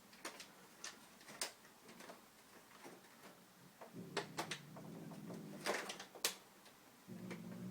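Light scattered clicks and ticks from an air conditioner unit. About four seconds in, a low motor hum starts abruptly, cuts out near seven seconds and starts again.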